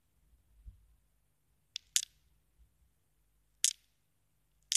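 Four short, sharp clicks at uneven spacing, two close together about two seconds in, then one near three and a half seconds and one at the end.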